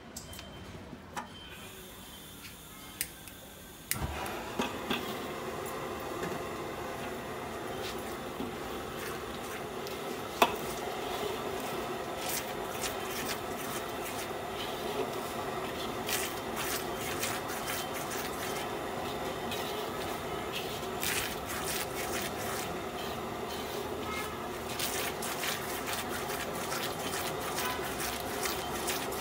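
A metal ladle stirring and scraping sauce in a hot iron wok, with occasional sharp clinks against the metal. About four seconds in, a steady sizzle starts and continues under the stirring.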